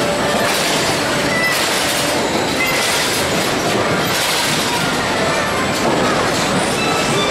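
Large mechanical carousel of metal-and-wood creature machines turning: a steady clattering rumble with brief high squeaks scattered through it.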